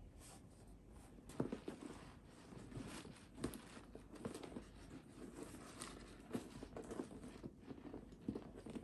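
Faint rustling and creasing of a Polène Le Cabas leather tote and a flat leather pouch being handled, with scattered light taps and knocks, a few of them sharper.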